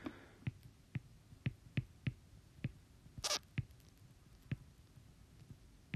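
Faint taps and scratches of a stylus on a tablet screen during handwriting: about a dozen light, irregular ticks, with one brief hissy scratch a little over three seconds in.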